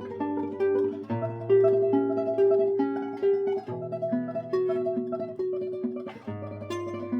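Solo classical guitar playing a tremolo piece, a quickly repeated upper melody over a plucked bass line.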